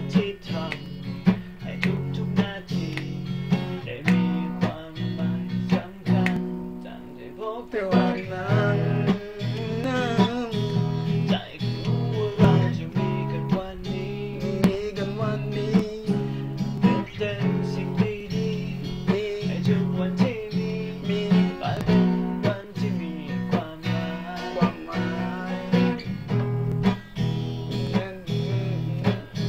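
Acoustic guitar strummed and picked in a steady rhythm, playing a song.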